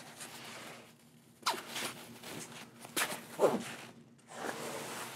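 Nylon backpack straps being pulled through plastic buckles, with the pack's fabric rustling under the hands: a few quick zip-like tugs, the sharpest about three and a half seconds in.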